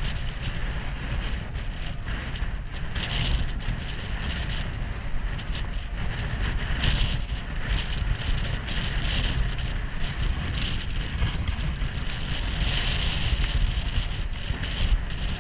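Steady wind buffeting the microphone over the constant rush of a wide, fast river below, the level swelling and easing in gusts.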